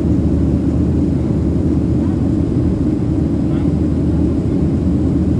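Steady low rumble of a Boeing 737-700 in flight, heard from inside the cabin: the CFM56-7B jet engines and airflow over the fuselage making an even, unbroken drone.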